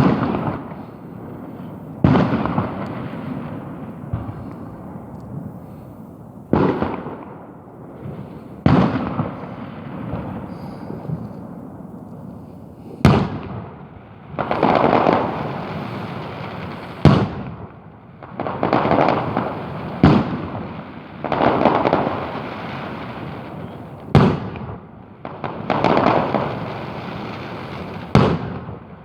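Fireworks: loud bangs of shells bursting every two to four seconds, several followed by a second or two of dense crackling.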